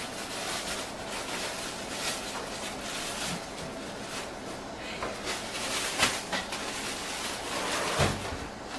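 Irregular rustling, scraping and light knocks of hands making a sandwich at a kitchen counter as bread is handled, with a sharper click about six seconds in and a low bump near the end.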